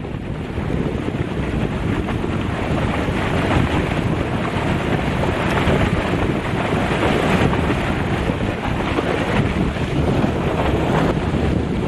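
Turbulent, foaming water rushing down a concrete-lined canal in a steady noise, with wind buffeting the microphone.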